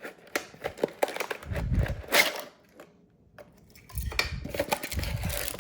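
Cardboard box being opened by hand: flaps and packaging handled, with scrapes and clicks, and dull bumps about a second and a half in and again from about four seconds in.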